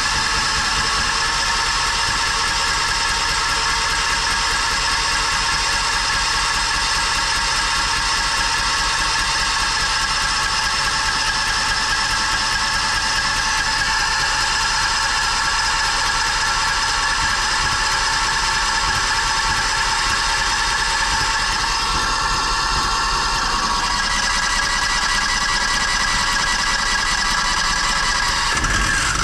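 Harbor Freight Predator 670cc V-twin engine on its first start, running steadily with a constant mechanical whine over its pulsing beat. The whine bends down and drops away just before the end.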